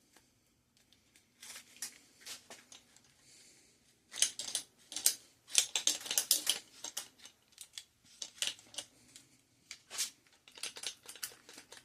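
Old plastic grip-shift shifters being worked off a bicycle handlebar: a string of irregular sharp clicks, rattles and cracks, busiest from about four to seven seconds in. The brittle old plastic is coming apart as they are pulled off.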